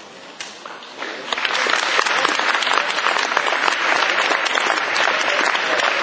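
Audience applauding, swelling in about a second in and holding steady, after a single sharp tap about half a second in as the competitor's hands stop the Speed Stacks solve timer.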